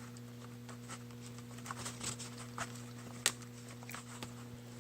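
Low steady electrical hum with scattered faint clicks and rustles of handling, and one sharper click a little past three seconds in.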